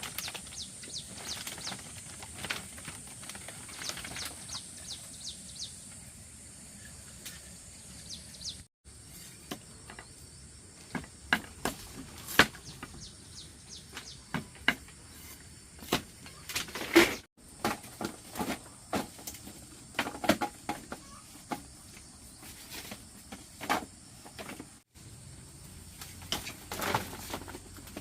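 Steady high drone of insects, with scattered sharp knocks and taps, most likely from hand work on the floor. The sound drops out briefly three times.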